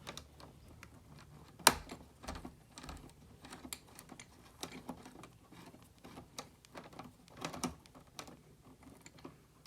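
Irregular small clicks and taps of hands joining the red wires of a smoke-alarm wiring harness with a wire connector, with one sharper click about a second and a half in.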